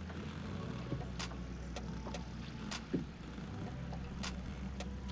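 A steady low motor hum from the boat, with sharp ticks about twice a second and one louder knock about three seconds in.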